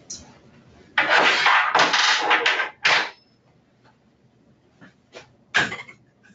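Loud rasping and rubbing of parts being worked on an upturned wheelchair's frame, lasting under two seconds, then a shorter scrape, and a brief one near the end.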